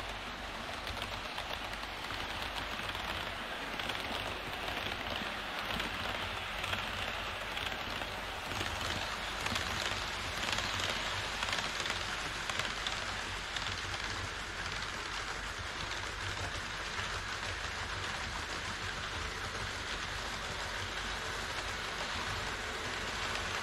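HO-scale model trains rolling along KATO Unitrack on an elevated viaduct: a steady rushing clatter of metal wheels on rail as a Twilight Express passenger set and then an E5 series shinkansen pass.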